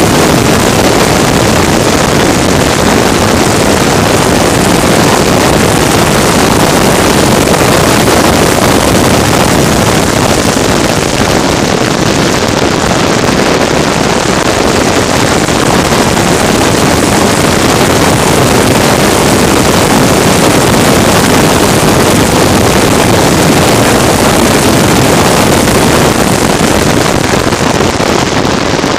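Loud, steady roar of a vehicle moving at speed: engine and wind noise blended into one even rush, with no clear engine pitch.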